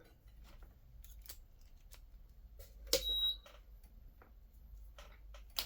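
Small clicks and knocks of handling a soldering station and its tip, with a sharper click about three seconds in followed by a brief high beep-like tone, and another click near the end.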